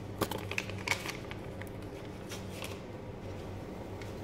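Paper sachets of Dream Whip topping mix rustling and crackling as they are shaken and opened, in scattered short bursts that are busiest in the first second or so.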